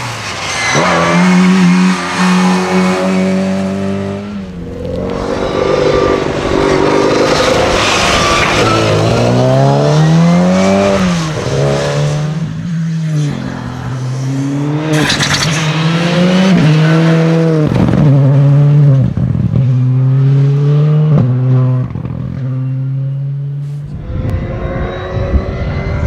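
Classic Mini rally car's four-cylinder A-series engine revving hard as it drives past at speed, its note climbing and dropping again and again with gear changes and lifts for the corners. Near the end the engine note gives way to a noisy rush.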